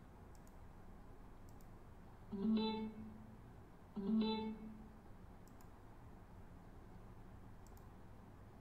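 Two identical short electronic chimes, about a second and a half apart, each a low note with a string of higher overtones dying away quickly. Faint mouse clicks sound around them.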